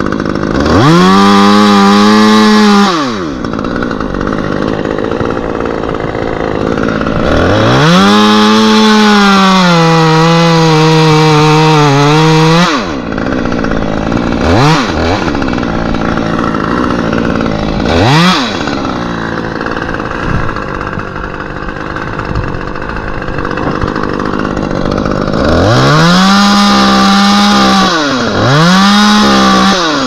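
Petrol chainsaw cutting into a willow limb. It revs up for a couple of seconds, then holds a long cut of about five seconds in which its pitch sags under load. After two short blips of the throttle it revs twice more near the end, idling in between.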